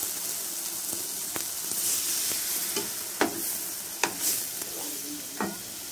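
Masala sizzling in a nonstick kadai while a spatula stirs in ground coconut paste and water, the sizzle getting brighter about two seconds in. A handful of sharp scrapes and taps of the spatula against the pan stand out over the hiss.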